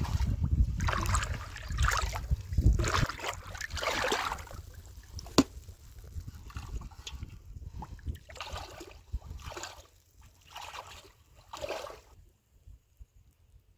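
Pond water sloshing and splashing in a series of irregular splashes as a person wades and moves a large metal pot through it. Wind rumbles on the microphone for the first few seconds, and there is one sharp knock about five seconds in. The splashing stops about twelve seconds in.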